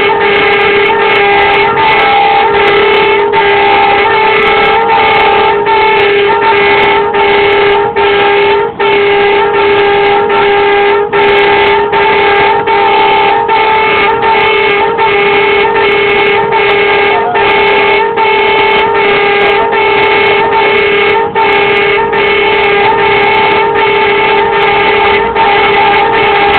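Tow truck's warning siren sounding a steady, loud pitched tone in rapid pulses, about three every two seconds, clearing a way through traffic.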